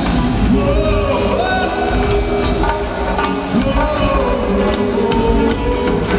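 Live band playing a worship song, with singing voices in the mix.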